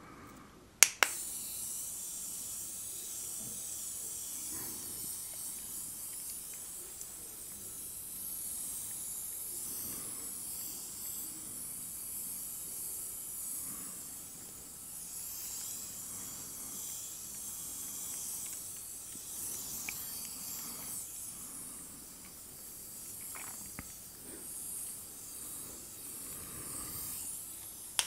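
Handheld facial mist sprayer clicking on about a second in, then hissing steadily as it sprays a fine mist close to the microphone.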